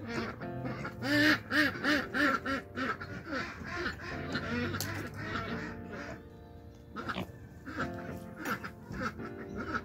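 A duck quacking in a quick run of about six quacks, over steady background music.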